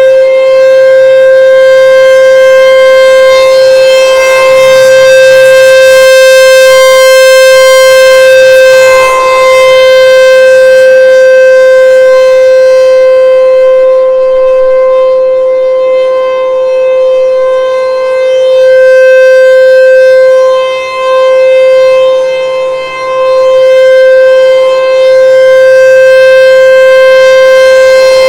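American Signal T-128 rotating outdoor warning siren sounding a full-alert test: one loud steady tone held at the same pitch, its level dipping briefly a few times.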